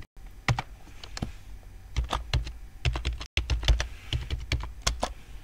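Typing on a computer keyboard: a username and password being keyed in as irregular runs of sharp key clicks.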